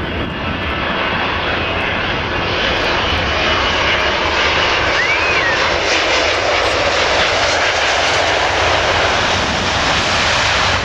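Boeing 777-200ER airliner's twin turbofan engines during landing: a loud, steady jet roar through touchdown and the roll-out on the runway, growing a little louder after about two seconds. A brief squeak comes about five seconds in.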